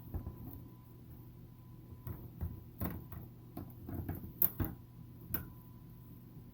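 A knife cutting through a crusty loaf of French bread, the crust crackling in irregular sharp clicks, busiest in the middle of the stretch.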